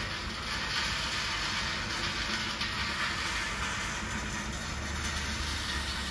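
Fishing-port ice plant's machinery running: a steady mechanical hiss with a low hum underneath.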